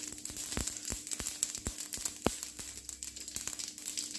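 Spice seeds crackling in hot oil in a stainless steel kadai: scattered, irregular sharp pops over a faint sizzle, the sign the oil is hot enough for tempering.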